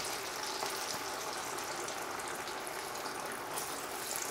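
Battered pork ribs deep-frying in a wok of hot oil on their second fry: a steady sizzling hiss with fine crackling.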